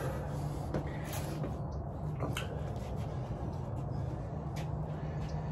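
Steady low hum with an even background hiss, broken by a few faint taps or rustles.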